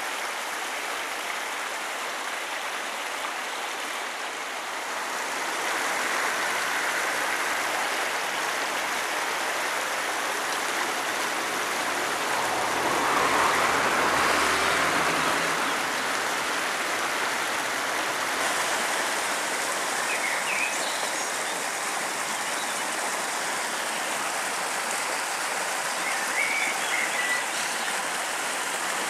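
Shallow, rocky river running over stones in a steady rush, swelling louder for a few seconds around the middle.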